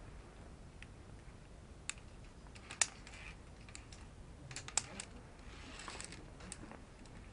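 A climber moving down a via ferrata: a handful of sharp, irregular clicks and knocks of gear and boots on rock, with a short scrape about six seconds in.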